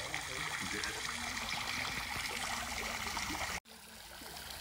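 Steady trickle of water running into a koi pond. The sound cuts out abruptly about three and a half seconds in and fades back up.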